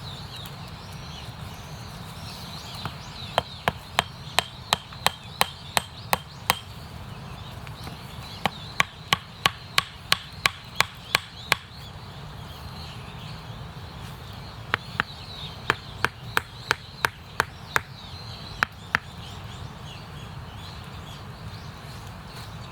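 Wood being chopped with a hatchet: sharp knocks about two or three a second, in three runs with pauses between them.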